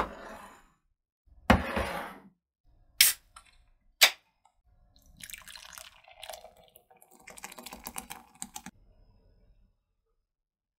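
A short loud rush of noise, two sharp clicks, then beer poured from a can into a glass mug, splashing and foaming for about four seconds before stopping.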